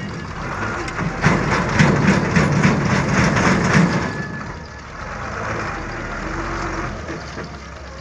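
Heavy dump truck's engine running hard under load as it tries to pull out of soft mud, with crackling and clattering over it; after about four seconds it drops to a quieter, steadier run.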